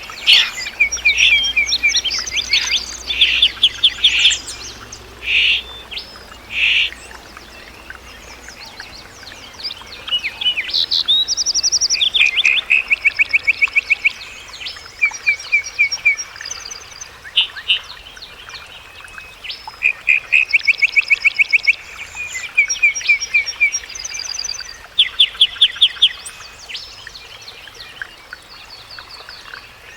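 Several small songbirds singing at once, overlapping songs made of fast trills of repeated notes and short chirps.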